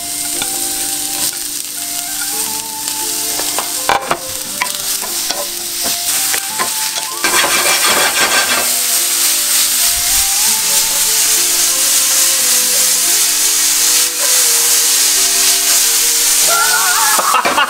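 Sliced mushrooms sizzling as they sauté in a hot cast iron skillet, the frying hiss growing louder about seven seconds in.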